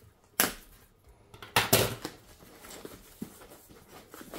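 Packaging being handled and opened: two loud, sudden bursts of rustling or tearing, about half a second and just under two seconds in, then quieter handling noises.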